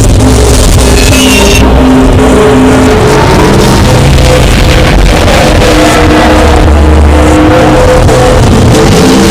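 Loud, distorted sound effects: held droning tones that shift pitch every second or two over a constant noisy rumble.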